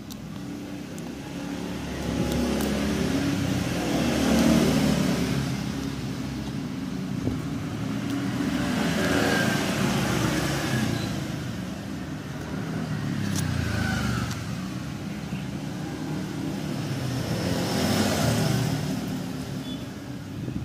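Road vehicles passing one after another: about four slow swells of engine and road noise, each building up and fading away over a few seconds.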